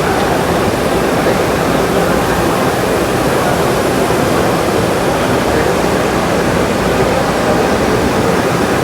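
Steady, loud din of a busy machine-tool exhibition hall: an even wash of noise with no single sound standing out.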